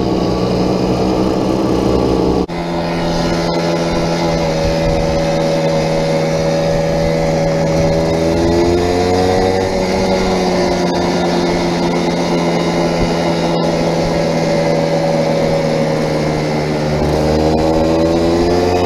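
Vintage 50cc two-stroke moped engine running under way, heard from the rider's seat, its pitch rising and falling as the speed changes. A sudden brief drop in the sound about two and a half seconds in.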